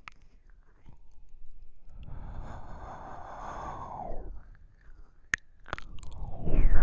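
Slow, wet ear-licking mouth sounds into a binaural microphone: a long slurp through the middle, then a few sharp wet clicks of the tongue and lips and a louder slurp near the end.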